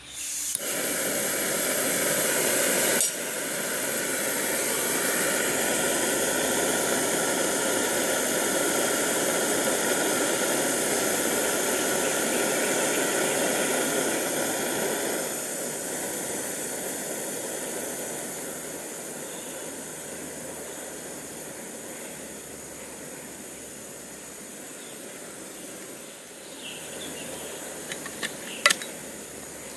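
Portable gas canister stove lit and running: a steady burner hiss that comes on suddenly, breaks off briefly about three seconds in, and settles to a quieter level about halfway through. A few sharp clicks near the end.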